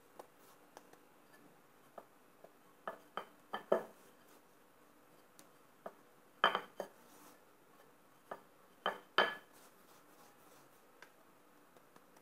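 Wooden rolling pin knocking and clacking on a granite countertop while a filled dough ball is rolled flat: a dozen or so irregular sharp knocks. The loudest come a little past halfway.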